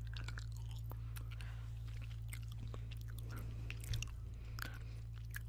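Gum chewed close to the microphone: a run of irregular wet clicks and smacks, over a steady low electrical hum.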